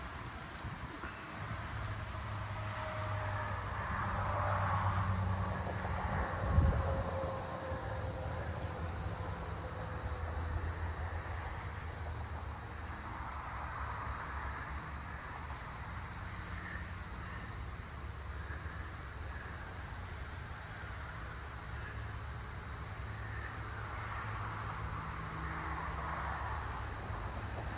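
Steady high-pitched chorus of crickets over a low rumble from something passing in the distance, which swells during the first several seconds with a slowly falling tone. A single sharp thump about six and a half seconds in.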